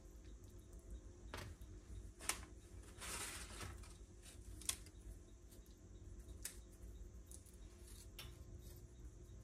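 A few sharp, separate clicks from plastic kitchen tongs handling and setting down strips of bacon on a griddle, over a faint low hum.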